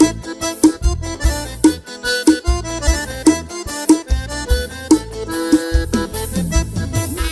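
Accordion playing a lively tune over a steady beat of bass and percussion.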